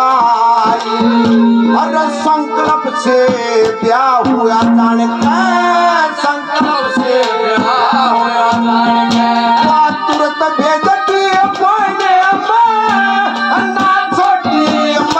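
Live Haryanvi ragni music: hand drums playing a busy beat under a held low note and a melody line that glides up and down in pitch.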